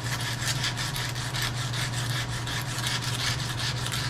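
Emery cloth rubbing against a metal handle turning in a lathe, a rasping scrape repeating a few times a second over the steady hum of the lathe's motor.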